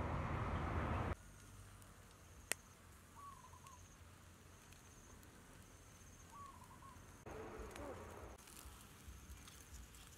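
Quiet rural ambience: an insect's faint, high, on-and-off trill, and a short bird call repeated about every three seconds. A louder rush of noise in the first second cuts off abruptly, and there is a single click about two and a half seconds in.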